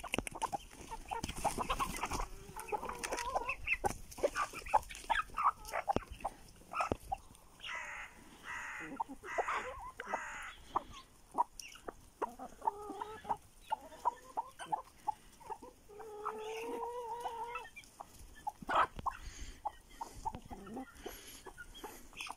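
A flock of hens clucking and squawking while they crowd and peck at scattered feed, with many short sharp pecking clicks. A run of loud squawks comes near the middle, and one drawn-out, steady call follows later.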